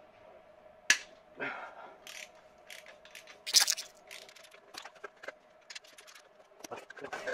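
Ratchet wrench clicking in short irregular runs, with a few sharp metal clinks, as it undoes a turbocharger fixing nut; the sharpest clink comes about a second in.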